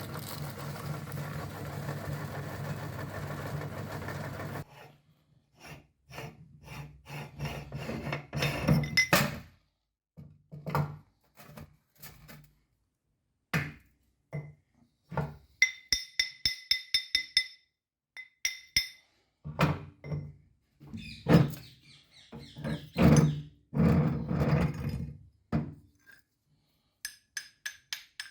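Electric meat grinder's motor running with a steady hum, switched off about five seconds in. Irregular knocks, thunks and a few ringing metallic clinks follow, as hard parts and contents are knocked about.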